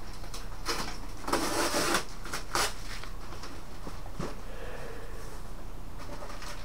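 Cardboard boxes handled and slid onto a shelf: a scraping rustle about a second and a half in, a shorter one a second later, and a light knock in the middle.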